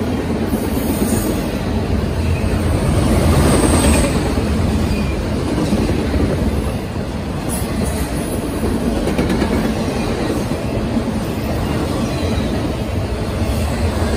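Norfolk Southern freight train rolling past with a steady heavy rumble of wheels on the rails. Brief high-pitched wheel squeals rise out of it a few times.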